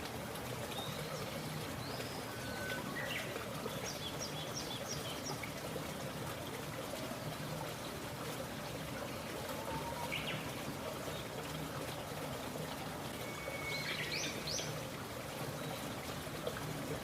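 Steady trickle of a flowing stream, with birds chirping now and then: a few short calls in the first five seconds, one about ten seconds in, and a quick cluster around fourteen seconds.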